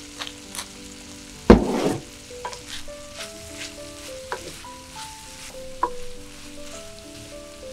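Diced bacon, onion, mushrooms and red bell pepper sizzling in a frying pan while being stirred with a wooden spatula. The spatula knocks and scrapes against the pan, loudest about one and a half seconds in, where a knock is followed by a short burst of sizzling.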